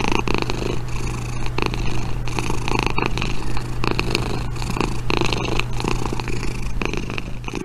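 Kitten purring steadily while its belly is rubbed by hand.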